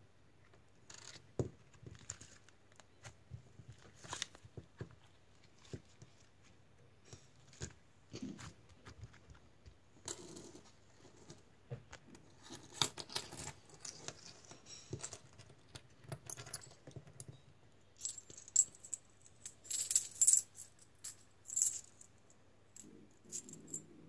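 Small coins clinking and jingling as they are handled, with scattered taps against a wooden table. The loudest, brightest clinks come in a cluster in the last third.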